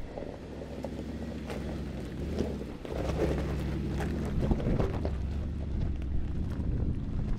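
Mercedes-Benz G500's twin-turbo V8 engine pulling the SUV slowly up a steep, loose rocky slope, with stones crackling under the tyres. The engine note dips and shifts about three seconds in and then runs louder as it climbs.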